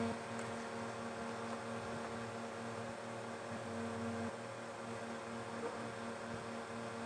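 Faint steady electrical mains hum made of several pitches, some of which swell and fade now and then.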